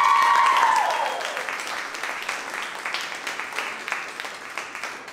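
Audience cheering with drawn-out whoops for the first second or so, then clapping that gradually dies away.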